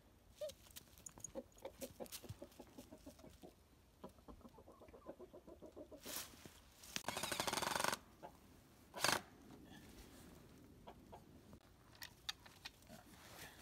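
Chickens clucking inside the coop, a run of short calls at a few per second. About six seconds in comes a louder rustling noise lasting nearly two seconds, then a brief one about nine seconds in.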